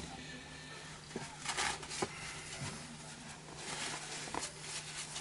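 Light handling noises of work on an oil burner: a few sharp clicks and brief rustles of parts and tools being moved, over a faint steady hum.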